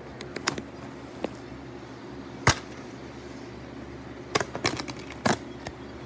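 Sharp plastic clicks and taps from handling a DVD case and disc: a few near the start, one loud snap about two and a half seconds in, and a cluster of clicks near the end, over a low steady electrical hum.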